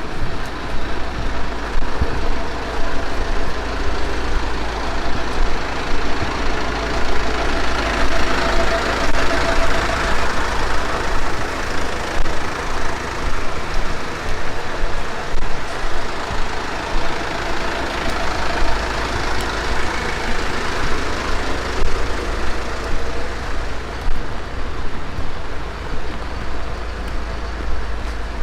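Heavy rain falling steadily, a dense even hiss with a constant low rumble underneath that swells a little a few times.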